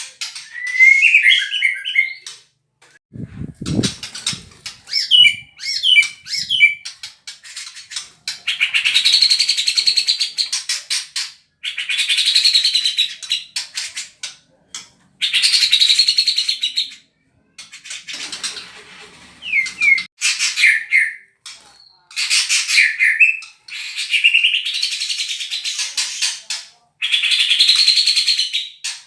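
White-rumped shama singing its 'tembakan' song: a few quick whistled notes, then repeated harsh rattling bursts of about two seconds each, imitating a grey-cheeked bulbul (cucak jenggot). A low thud about three to four seconds in.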